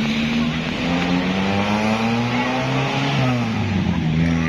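A large bus passing close by, its diesel engine running and revving, with the engine note shifting in pitch as it goes past a little after the middle.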